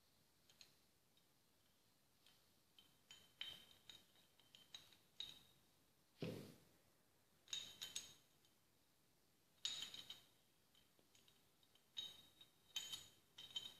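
Metal parts of a dismantled car starter motor clicking and clinking as they are handled and fitted together: scattered light taps with a short ring, and one duller knock about six seconds in.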